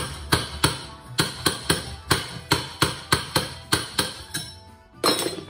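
Hammer blows on a tube drift, driving a new steering head bearing down onto the steering stem of a BMW K100 lower fork yoke: about sixteen sharp strikes, roughly four a second, stopping a little over four seconds in. A short, louder clatter follows about a second later.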